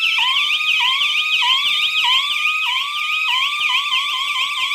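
220 V electronic siren buzzer sounding loudly, switching right at the start from a fast warble to its next tone: a repeating rising sweep that drops back and rises again about one and a half times a second.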